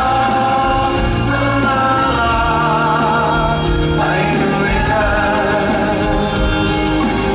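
A male singer singing a Thai pop song live into a handheld microphone, his voice wavering on held notes, over continuous band accompaniment.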